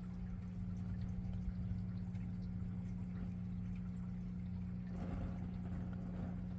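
A steady low hum with a rushing, water-like noise over it that swells about five seconds in.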